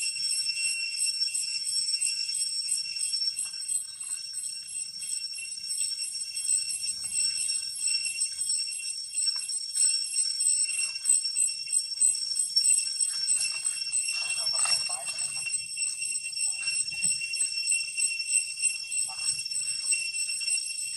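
A chorus of insects in the trees, droning at several high pitches with a fast steady pulse that runs on without a break.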